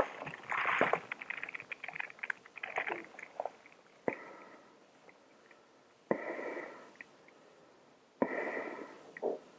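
Close-miked crinkling and clicking of a hazmat suit's plastic fabric, then breaths about two seconds apart, each starting with a sharp click and fading away.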